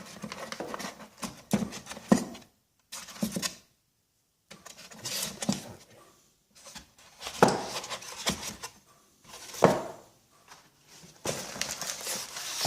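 Steel measuring tools and their box being handled: irregular clicks, knocks and light rattles of metal parts set down and moved, with a few sharper knocks.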